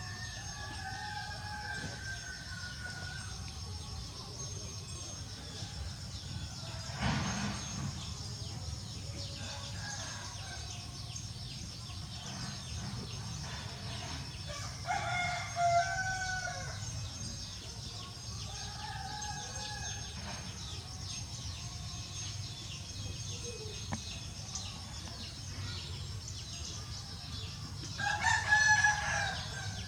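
Domestic fowl calling several times, crow-like, with the loudest calls around the middle and near the end, over a steady low hum.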